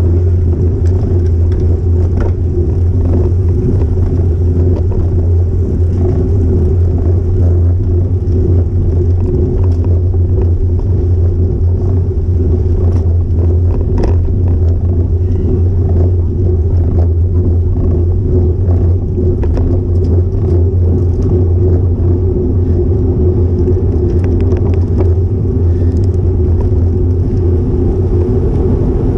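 Wind rumbling over an action camera's microphone while riding a road bike: a loud, steady, low rumble with a few faint clicks scattered through it.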